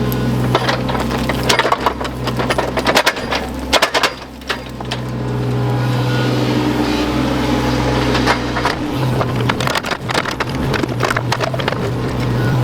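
Excavator's diesel engine running steadily while its bucket digs, with many sharp cracks and crunches of wood and earth breaking. The engine note shifts about nine seconds in.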